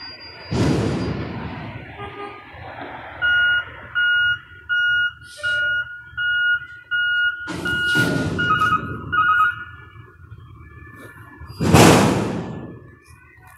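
Front-loader garbage truck backing up: its reverse alarm beeps steadily about once every 0.7 s for around six seconds, while its air brakes let out three loud hisses, the last and loudest near the end.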